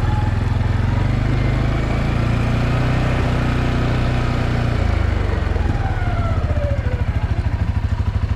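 CFMoto ATV engine running under way, then dropping in pitch about five seconds in and settling to an evenly pulsing idle as the machine comes to a stop.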